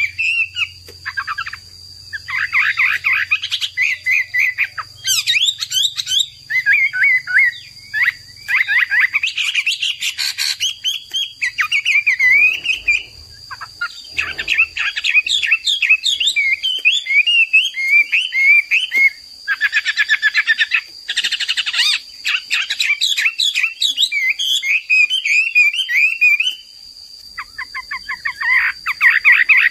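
A Chinese hwamei (melodious laughingthrush) singing full, vigorous song: phrases of rapid rising-and-falling whistled notes and fast trills, several seconds each, broken by brief pauses.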